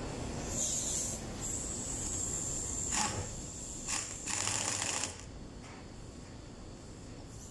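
Pneumatic impact wrench tightening the bolts of a forklift hydraulic pump body. A hiss of air comes first, then the wrench runs in three short bursts, the last about a second long, ending about five seconds in.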